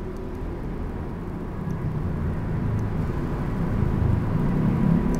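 A low, steady background rumble, like an engine or traffic, growing slowly louder; no clear clicks stand out above it.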